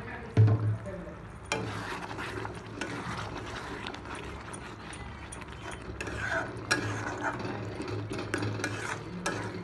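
Metal spatula scraping and stirring thick, bubbling spiced masala in an aluminium kadai, with irregular clicks and scrapes of metal on metal; a loud clank comes about half a second in. The masala is being fried (kasha) for a fish curry, over a steady low hum.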